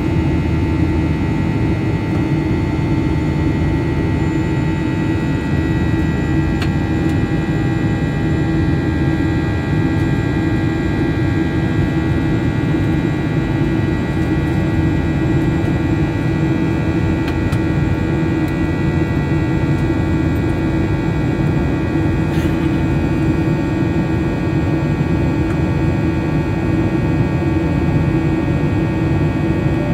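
Steady cabin noise of a Boeing 737-800 in flight, heard from a window seat beside the wing: the CFM56-7B turbofan's even drone, with a deep rumble under several steady whining tones.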